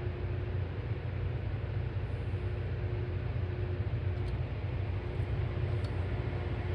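Steady low rumble of heavy rail equipment running, with a faint steady hum over it and no change in level.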